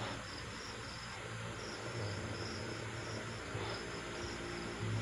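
Crickets chirping in an even rhythm, about two chirps a second, over a low hum that comes and goes.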